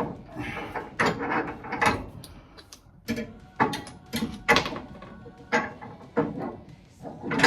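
Irregular metallic clanks and knocks of steel parts: a steering rack, its long mounting bolt and spacers being handled and fitted into the mounting brackets.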